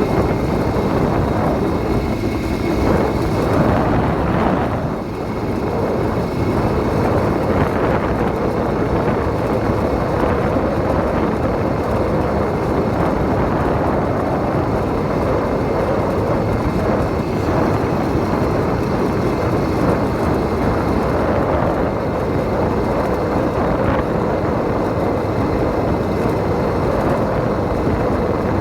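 An 80cc motorized bicycle engine running steadily under way.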